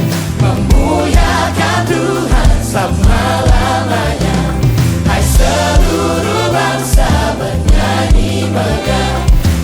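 Gospel worship song played by a choir and full band: many voices singing together over drums and bass, with a steady beat.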